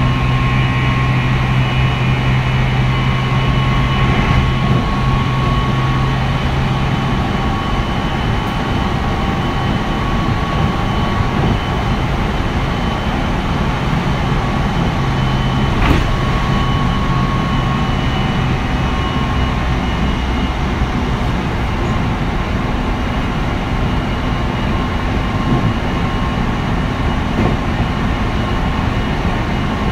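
Meitetsu 3100-series electric train running, heard from inside car 3204: its Toshiba IGBT-VVVF inverter and traction motors give steady high tones over the rumble of the wheels on the rails. A low hum fades out a few seconds in, and there is a single sharp click about halfway through.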